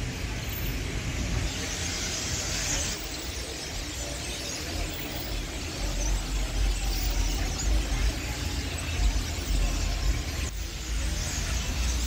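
A large roosting flock of pájaros prietos (dark blackbirds) chattering and squealing in a dense, unbroken chorus, with a low rumble underneath.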